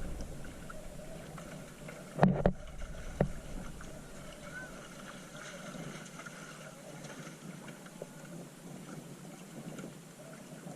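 Small boat on the water: a steady light wash of water and wind, broken by a couple of hard knocks about two seconds in and a lighter knock about a second later.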